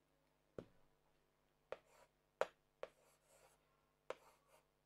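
Felt-tip marker writing on a whiteboard: about five sharp taps as the pen tip strikes the board to start strokes, the loudest about halfway through, with faint rubbing of the tip between them.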